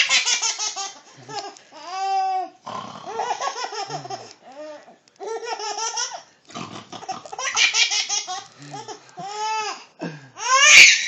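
High-pitched laughter in repeated bursts, loudest near the end.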